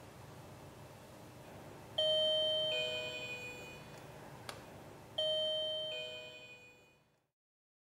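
BITIWEND wireless driveway alarm receiver playing a two-note ding-dong chime twice, each a high note falling to a lower one and ringing out; the ringtone signals that the solar PIR motion sensor has paired with the receiver. A short click falls between the two chimes.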